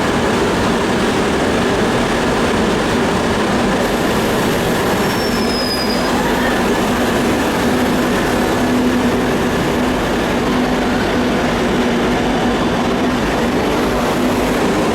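Electric commuter or metro train running through a station, loud and steady throughout, with a short high squeal about five seconds in.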